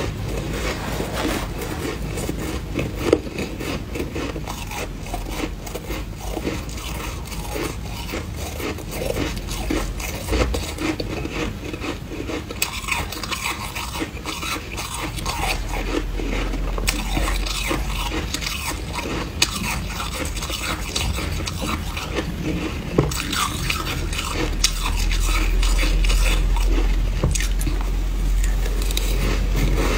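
A metal spoon scraping and scooping freezer frost in a glass dish, with the frost crunching as it is bitten and chewed. Together they make a dense run of small crackles and scrapes, with a few sharper knocks.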